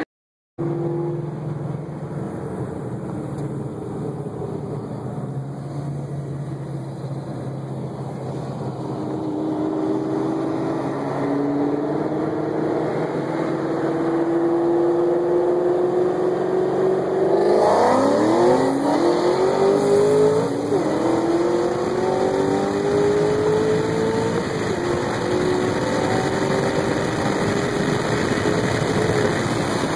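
Supercharged 5.8-litre V8 of a 2013 Shelby GT500 running steadily, then accelerating hard from about halfway through. Its pitch climbs in long pulls that drop back and rise again with each gear change.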